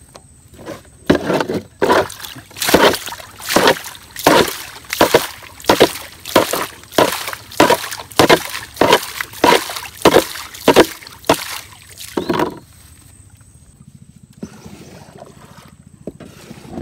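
Water being bailed out of a leaking wooden boat with a cut-open plastic container: quick, evenly repeated scoop-and-splash strokes, about one and a half a second, that stop about twelve seconds in.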